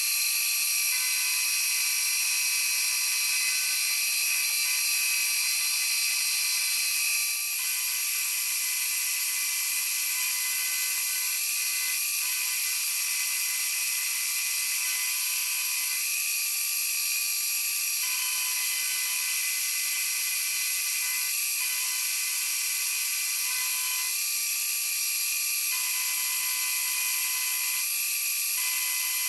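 Milling machine spindle running with an end mill cutting into a metal block: a steady high-pitched whine made of several held tones, which shifts slightly about seven seconds in.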